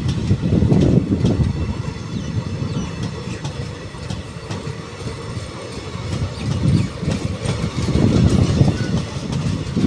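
Passenger train's chair-car coaches rolling past close by: a heavy low rumble that swells and eases, with sharp clicks and clacks of the wheels running over the rail joints.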